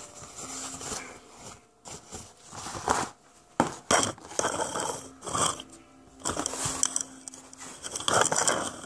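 Kitchen paper towels being torn off the roll and folded, with irregular paper rustling and crinkling and a few sharp clicks of handling.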